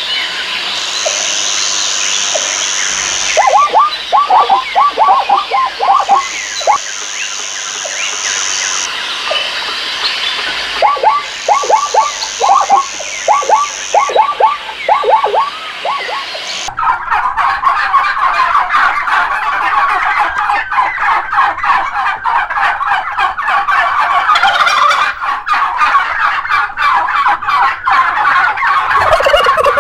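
Wild turkeys gobbling: bursts of rapid, falling gobble notes a couple of seconds apart, under a steady high buzz that switches on and off. About 17 seconds in, an abrupt cut brings a dense, continuous clamour of many birds calling at once.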